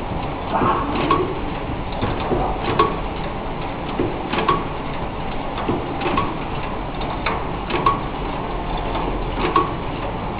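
Automatic cellophane overwrapping machine for playing-card boxes running: a steady mechanical whir with a regular clack about every second and a half to two seconds, and lighter clicks in between.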